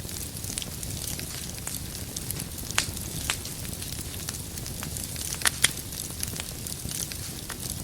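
Wood fire crackling: a steady low rush of burning with scattered sharp pops of firewood, a few louder snaps about three and five and a half seconds in.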